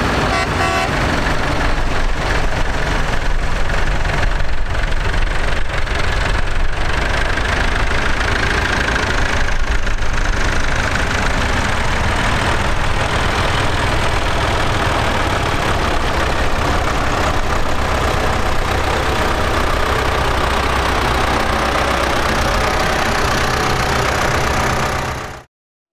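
Tractor engines running at low revs as a procession of vintage and modern tractors drives slowly past one after another, a steady low engine din; the sound cuts off abruptly near the end.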